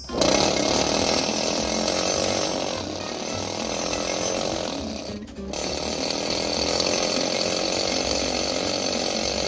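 Pneumatic needle scaler hammering over a weld on a steel Model A Ford front axle, putting a texture on the welded metal. It runs in two long stretches, stopping briefly about five seconds in.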